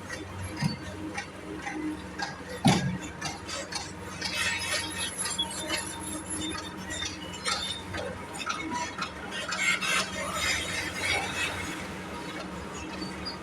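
Metal tools and fittings clinking and knocking, with one loud knock about three seconds in and stretches of scraping or brushing noise, over a steady low hum.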